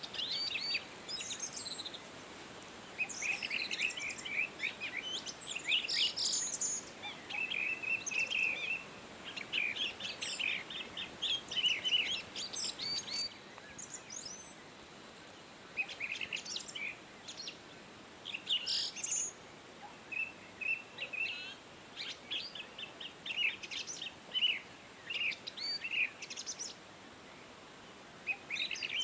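Small birds chirping and twittering in quick bouts of short, high notes over a faint steady hiss.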